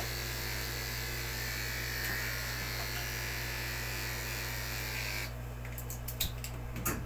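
Corded electric pet clipper running steadily as it shaves through a dog's matted fur. Its high buzz stops about five seconds in, and a few light clicks follow.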